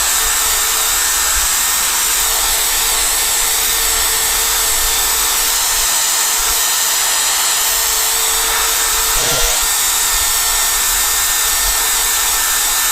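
Electric drill running steadily, spinning a headlight-restoration abrasive pad against a hazy windscreen to clear the haze.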